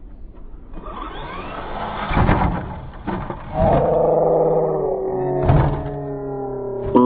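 Electric RC car's motor whining up as it speeds toward the jump, a hard thud about two seconds in, then a whine that falls slowly in pitch as the car tumbles, with another thud about five and a half seconds in.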